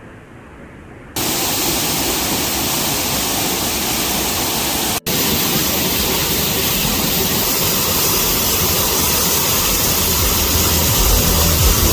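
Rushing water of a waterfall, a loud steady hiss that starts suddenly about a second in, with a split-second break near the middle.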